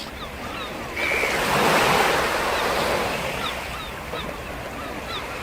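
Sea surf: a wave surges in about a second in and washes back out, over a steady wash of water. Short, high, falling chirps sound faintly above it.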